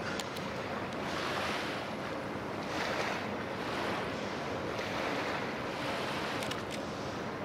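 Small waves lapping at the water's edge, a wash of water swelling and fading about once every second or so, over a faint steady hum.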